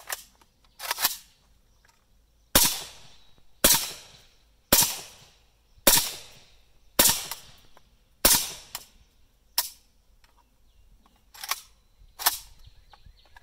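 Suppressed AK47 firing Brown Bear 196-grain subsonic 7.62x39 rounds: about seven shots roughly a second apart, each a sharp crack with a short fading tail. Later come a few quieter sharp sounds, with small clicks at the very start.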